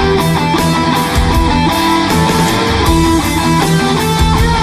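Background rock music with guitar over a steady beat.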